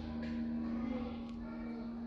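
Background music holding one long low note.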